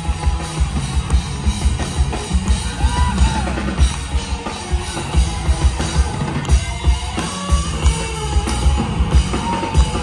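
Rock band playing live through a venue PA: kick drum and snare driving a steady beat under bass and electric guitar.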